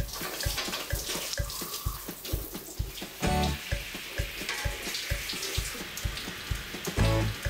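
Shower spray running steadily, with background music over it: a steady low beat and short pitched notes twice, about three seconds in and near the end.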